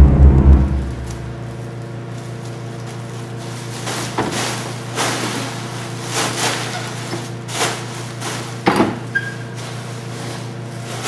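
A steady low hum with a few sharp knocks and thumps scattered through it, some of them doubled.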